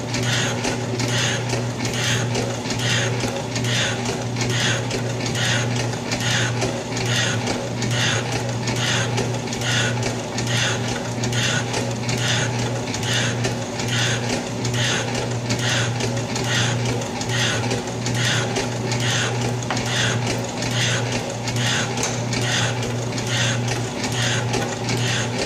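Atlas metal shaper cutting: the ram strokes back and forth in a regular, even rhythm over a steady motor hum as the tool takes a 20-thousandths roughing cut, running smoothly and sounding pretty good.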